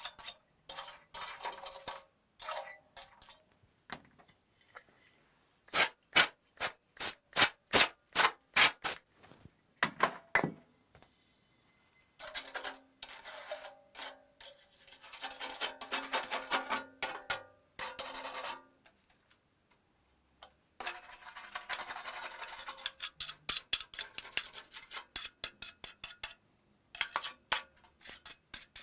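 A small stiff brush scrubbing the metal bottom plate of a PlayStation 4 in bursts of rough back-and-forth strokes, broken by short pauses. About six seconds in comes a run of crisp, quick single strokes.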